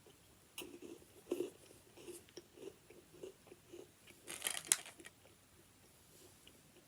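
A person chewing a crunchy Malteser-centred Revels chocolate with the mouth close to the microphone: soft, regular chews about twice a second, with a louder, noisier crunch about four and a half seconds in.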